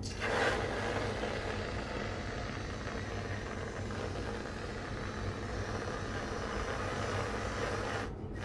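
Aerosol can of whipped cream spraying in one long hiss, loudest just after it starts, then steady until it cuts off suddenly near the end.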